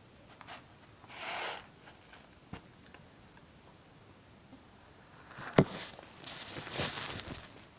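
Short rustles and a few small clicks, then a sharp knock about five and a half seconds in, followed by a couple of seconds of rustling and knocking as the phone recording is picked up and handled.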